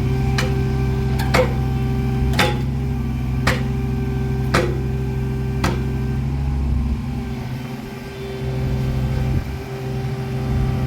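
Engine of heavy construction machinery running steadily, with a sharp regular knock about once a second, six in all, that stops about six seconds in; shortly after, the deep low part of the engine sound drops away.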